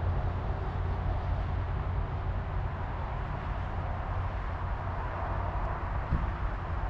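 Steady vehicle engine hum with a low drone, under a broad even wash of road or wind noise.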